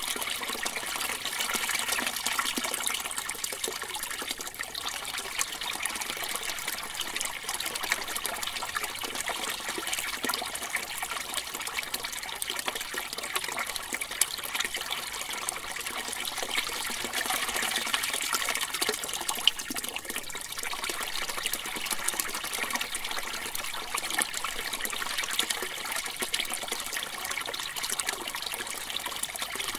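Water running and trickling steadily, a continuous splashy sound that sits mostly high, with little low rumble.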